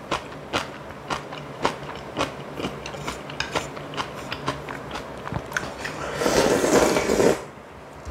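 Close-miked eating of clam kalguksu and kimchi: chewing with sharp, crisp crunches a few times a second. Near the end comes a loud slurp lasting about a second.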